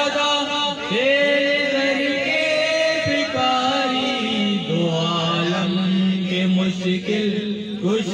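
Men's voices chanting an Urdu manqabat, a devotional song praising a Sufi saint, holding long notes that slide from one pitch to the next.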